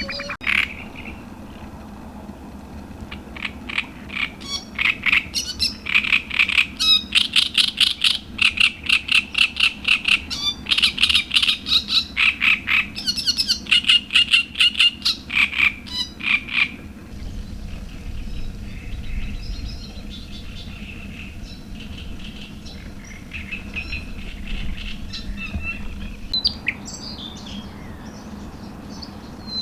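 Lakeshore animal calls: a rapid run of sharp, repeated calls, about four or five a second, lasting some fourteen seconds. They are followed by fainter scattered bird chirps over a low rumble.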